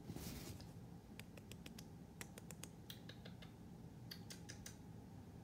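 Near silence in a quiet room, broken by a scattering of faint, light clicks.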